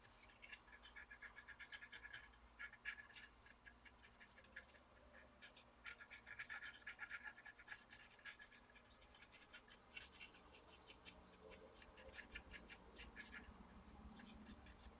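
Faint scratching and scraping on a laptop motherboard, in quick runs of short strokes with brief pauses, as the solder area of the power jack is cleaned.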